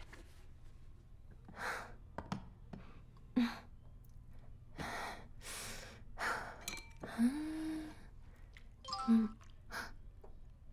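A person's breaths and sighs: a string of short breathy exhalations, with a brief hummed vocal sound near the middle and another near the end.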